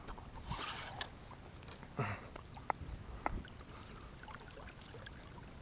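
Faint water lapping around a plastic kayak, with a few light clicks and knocks from the fishing rod, reel and hands on the hull.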